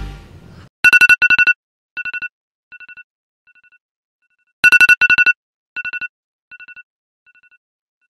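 The standard iPhone alarm tone: groups of about four rapid, high beeps, each group quieter than the last. The sequence starts over at full loudness about four seconds after it begins.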